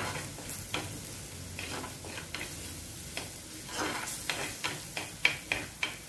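Crushed ginger and garlic with curry leaves frying in ghee in a chatti, sizzling steadily while a steel spoon stirs and scrapes against the pot; the scraping strokes come quicker and sharper near the end. The ginger and garlic are just turning lightly browned.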